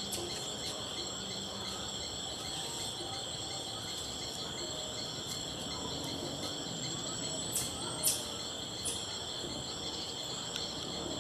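Steady, continuous high-pitched chorus of crickets or other insects, with a few short, sharp, very high chirps about two-thirds of the way through.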